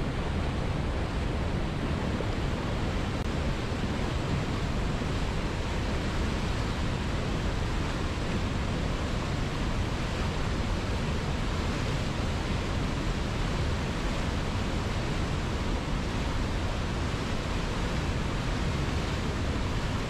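Whitewater river rapids rushing over boulders: a steady, unbroken rush of water.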